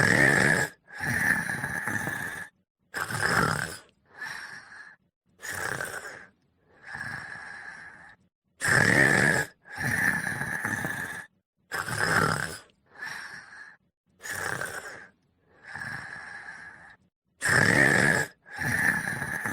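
Snoring: a run of short snores, roughly one a second, each stopping dead into complete silence before the next.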